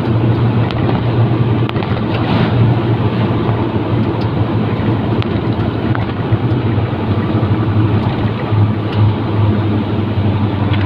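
A truck's engine runs steadily at cruising speed, a continuous low drone mixed with road and tyre noise, heard from inside the cab.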